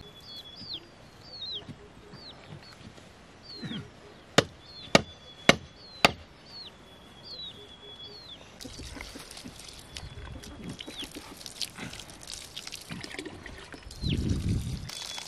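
A bird repeats short falling chirps while four sharp chopping blows land about half a second apart. From about halfway through, water from a hose pours steadily into a plastic bucket.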